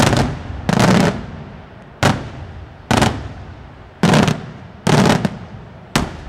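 Daytime aerial firework shells bursting overhead: about seven loud bangs, roughly one a second and unevenly spaced, each trailing off in a rolling echo.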